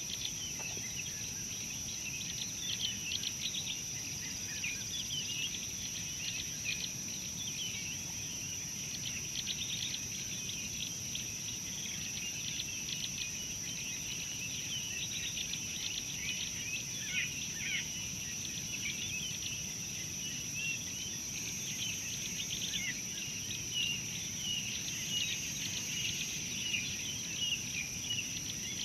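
Many small birds chirping and calling, with short chirps and a few falling notes, over a steady high-pitched insect drone.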